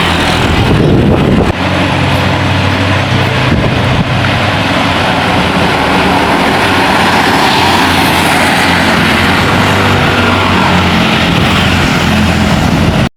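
Large buses passing close by on the road with their engines running, a steady low engine hum under tyre and road noise that swells about eight seconds in; no horn is sounded.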